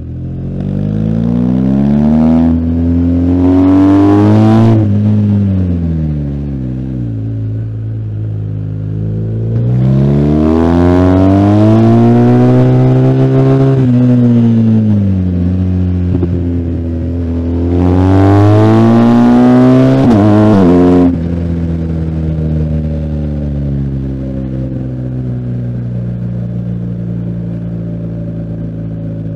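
BMW R1250GS Adventure's boxer-twin engine pulling hard three times, its pitch climbing and falling with each burst of throttle. About two-thirds of the way through the throttle snaps shut and the engine runs on at a steady, lower note.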